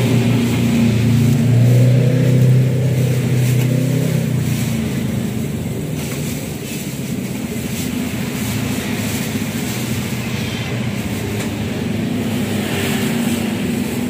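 Steady low motor rumble, with a stronger hum in the first few seconds that then eases to an even drone.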